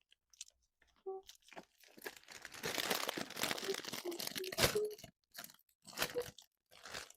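Plastic candy wrappers crinkling and tearing open, a dense run of rustling and crunching crackles in the middle with scattered short crackles around it, as sweets are taken out of a bag and unwrapped.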